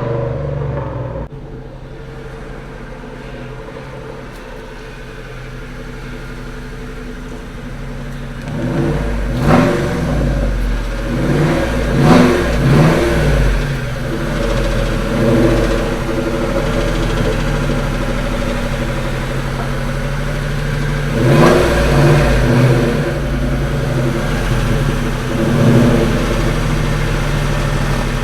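1998 Ford Mustang Cobra's 4.6-litre DOHC V8 idling steadily, then blipped in short revs that each rise and fall in pitch: a cluster about ten to thirteen seconds in, and more around twenty-one to twenty-six seconds.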